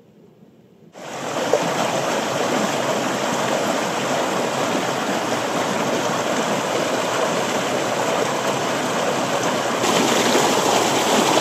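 A stream rushing out of two culvert pipes under a concrete footbridge and splashing over rocks. The steady rush cuts in suddenly about a second in and grows a little louder near the end.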